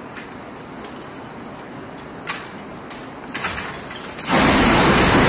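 Low hiss with a few faint clicks, then about four seconds in a sudden loud rush of water, like surf crashing in, that carries on.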